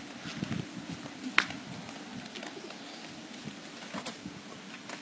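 A dove cooing low, strongest in the first second, over a steady hiss, with a few faint clicks and one sharp click about a second and a half in.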